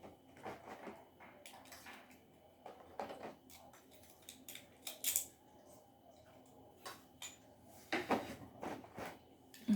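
Beyblade top and its plastic packaging being handled: scattered light clicks, taps and rustles at irregular intervals, with a sharper knock at the very end.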